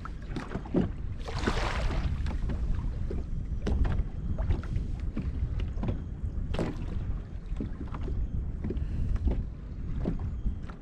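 Wind rumbling on the microphone aboard a fishing kayak, with water lapping and scattered light knocks against the hull. A short hiss comes about a second and a half in.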